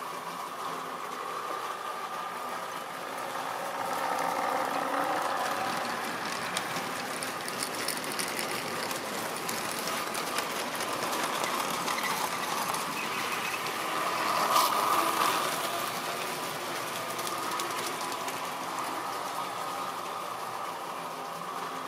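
Tri-ang model diesel locomotive's electric motor whining steadily as it hauls tank wagons round the layout, with the wheels ticking over the rail joints. It grows louder twice as the train passes close by, loudest about fifteen seconds in.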